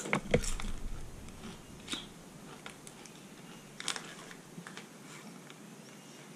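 Crunchy roasted-corn corn chips being chewed: a quick run of sharp crunches in the first half-second, then a few scattered crunches.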